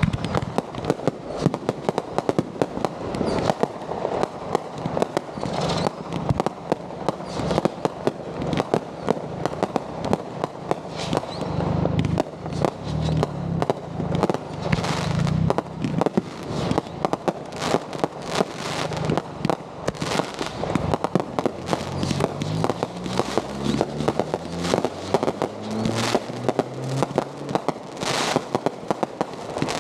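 Consumer aerial fireworks firing in rapid succession: a continuous run of pops, bangs and crackling bursts, many a second.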